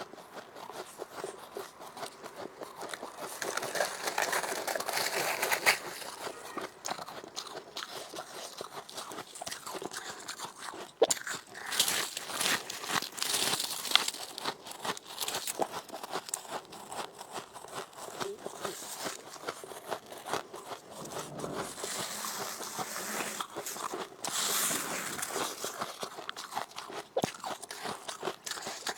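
Close-up crunching of a person biting and chewing powdery freezer frost: a dense run of crisp crunches, growing louder in a few spells as fresh mouthfuls are bitten.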